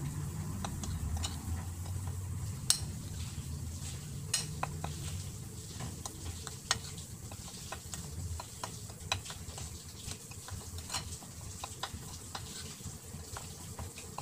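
Metal spoon stirring and scraping dry seasoned flour on a ceramic plate, with irregular clicks as the spoon knocks against the plate.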